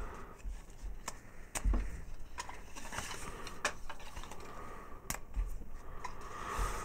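A folded strip of paper raffle tickets being unfolded and handled: irregular crinkling and crackling paper clicks, with a soft low thump a little under two seconds in.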